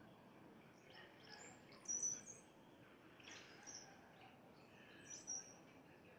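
Small birds chirping: short, high chirps and whistles, loudest about two seconds in and again about five seconds in.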